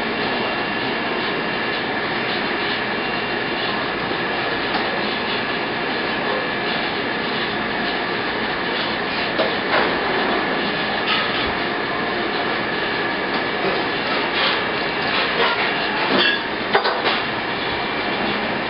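Steady mechanical noise with a steady high tone, and a few scattered knocks and clicks in the second half.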